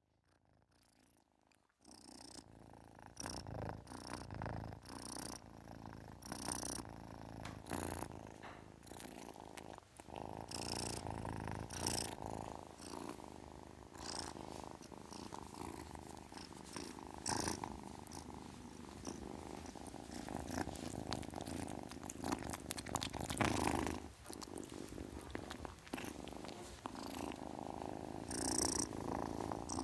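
Kitten purring steadily, starting about two seconds in after a moment of near silence, with scattered faint clicks over it.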